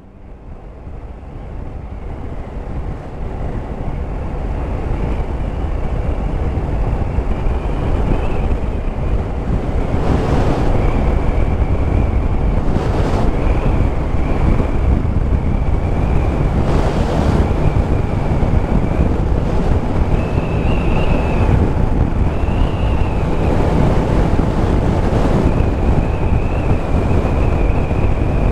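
Wind rushing over a helmet camera's microphone while riding a Yamaha Tracer 9 GT motorcycle, a steady low rumble of the moving bike mixed in. It fades up over the first several seconds, then holds steady.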